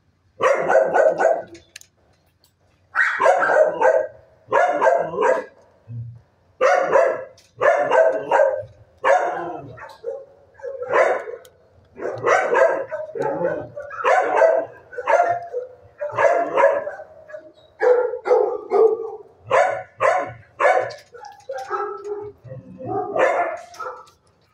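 Dogs in shelter kennels barking over and over, about one to two barks a second, with a short pause about two seconds in.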